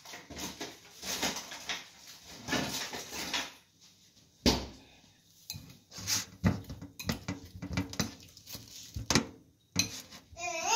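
Dishware handled on a stainless steel kitchen counter: a bowl clinking and scraping, with a sharp knock about four and a half seconds in and a run of small clicks after it.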